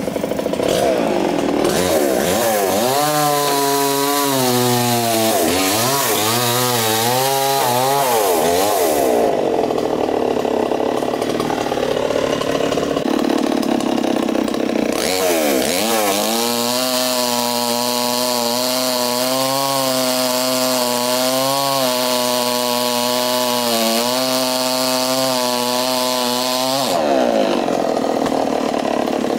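Two-stroke chainsaw running at high revs and cutting into a tree trunk, its engine note rising and falling as the chain bites into the wood.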